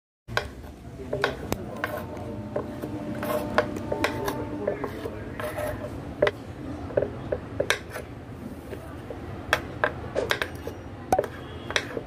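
Kitchen knife chopping button mushrooms on a cutting board: irregular sharp knocks of the blade hitting the board, about one to two a second, with a steady low rumble underneath.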